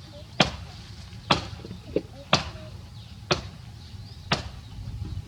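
Five sharp chopping blows, evenly spaced about a second apart, with a fainter knock between the second and third.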